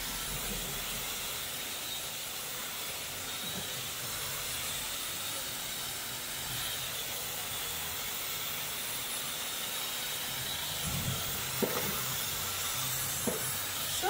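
Dyson hair dryer with its wide comb attachment running steadily, a continuous hiss of blowing air as it is drawn through damp hair. A few light knocks come near the end.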